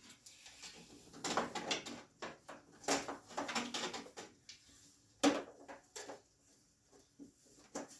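Clicks, knocks and rattles of a plastic headlight being fed through a riding mower's hood and fitted into its mount, with one sharper knock about five seconds in.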